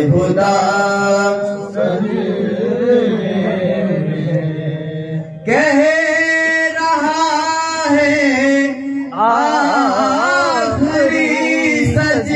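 A man chanting a devotional Urdu kalam in long, wavering melodic phrases, with a steady low tone beneath and brief pauses between phrases about five and nine seconds in.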